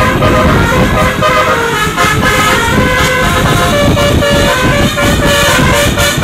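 Telolet basuri bus horn playing a quick melody of stepped, held notes, over loud engine and road noise.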